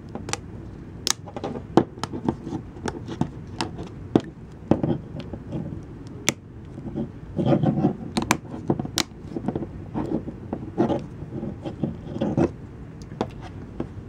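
Samsung Galaxy S4 plastic mid-frame being pressed down onto the phone's housing, its clips snapping into place in a string of irregular sharp clicks, with rubbing and knocking of fingers on the plastic in between.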